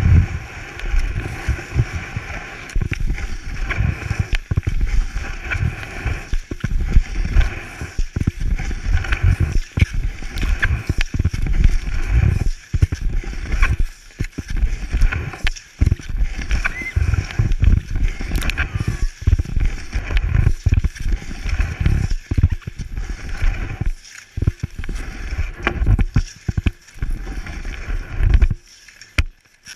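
Cross-country skis sliding and scuffing over packed snow, heard close up from a camera mounted on the ski boot: an uneven, deep rushing broken by frequent knocks and scrapes as the skier strides. It drops off briefly near the end.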